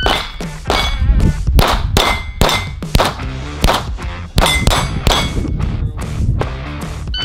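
Rapid pistol fire at steel plate targets. Each shot is followed closely by the ringing clang of a hit steel plate. The shots come in quick runs with brief gaps, and the firing is lighter for about the last second and a half.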